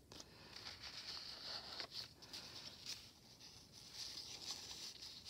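Faint rustling and light taps of paper-doll cutouts being handled and slipped into a pocket on a paper journal page.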